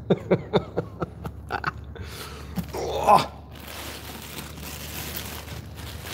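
Plastic wrapping crinkling and rustling as it is pulled off a large 18-inch subwoofer, from about three and a half seconds in. Before that come a few short grunts, the loudest about three seconds in.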